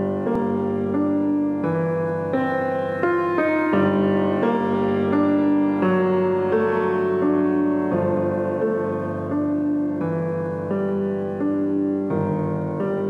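Instrumental intro music: a slow melody of held notes that change about once a second.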